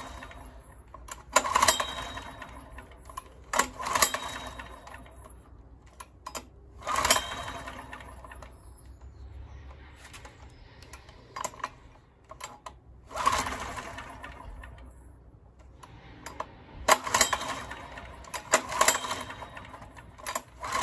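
Recoil starter of a Honda EX1000 portable generator pulled again and again, about six pulls a few seconds apart, each a short whirr of the rope and the engine turning over. The engine does not catch: a generator that won't start after running badly and backfiring through the carburettor.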